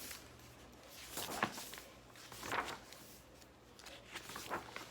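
Soft paper rustling as a picture book is handled and its pages are turned: two short swishes, then a few light clicks near the end.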